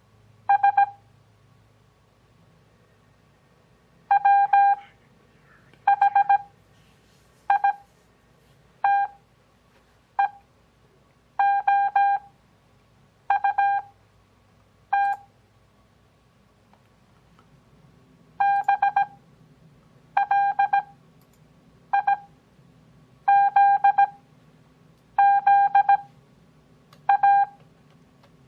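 Morse code practice audio: a single-pitch beep keyed in dots and dashes at 17 words per minute character speed, with long Farnsworth gaps between characters for an overall 6 words per minute. Each character is a quick cluster of beeps, followed by a pause of a second or more before the next.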